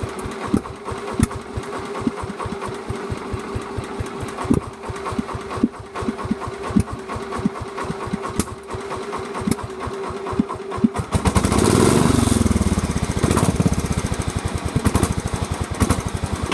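The Sears Suburban garden tractor's swapped-in small engine idles with a steady firing beat, then about eleven seconds in is throttled up and runs louder and faster.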